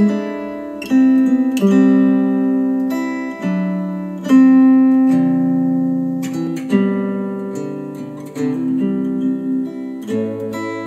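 Instrumental music of slow plucked-string notes and chords, each one ringing out and fading before the next, played back through KEF R3 bookshelf speakers.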